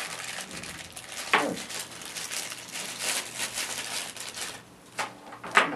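Clear plastic packaging bag crinkling as it is handled and pulled open, with a sharp knock about a second in and another near the end.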